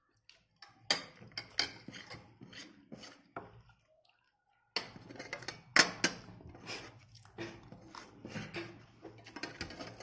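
Cutlery clinking and scraping against dinner plates while people eat, in irregular clusters of sharp clicks, with a short quiet gap in the middle.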